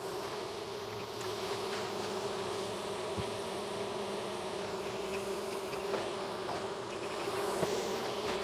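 A crowd of honeybees buzzing in one steady, unbroken hum.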